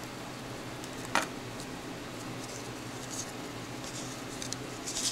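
Baseball cards being handled and slid against one another in the hands, faintly, with one sharp click about a second in, over a steady low hum.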